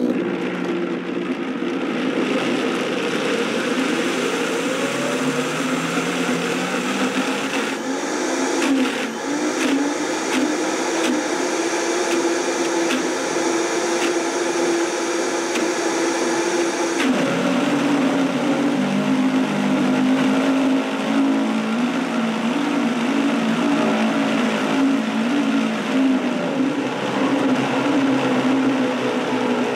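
High-powered countertop blender switched on and running on a thick mixture of coconut milk, coconut oil and honey, loud and steady, its motor pitch wavering as a tamper pushes the mixture down into the blades. The pitch climbs over the first few seconds and changes abruptly a little past halfway.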